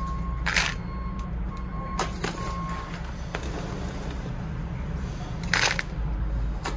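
A truck's engine runs steadily in the background, its reversing alarm beeping in an even pattern that stops about a third of the way through. Twice, granular bonsai substrate is poured from a scoop into the pot, each a short hiss.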